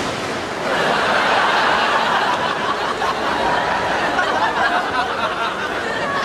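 A crowd laughing, many voices at once, swelling about a second in.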